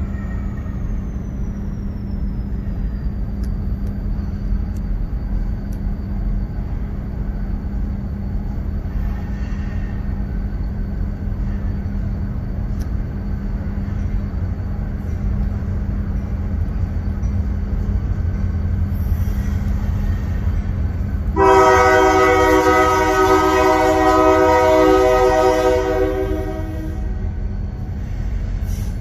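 Union Pacific freight train's diesel locomotives rumbling steadily as they approach. About three quarters of the way in, the lead locomotive's air horn sounds a long blast of several notes at once for about five seconds, and a second blast starts right at the end.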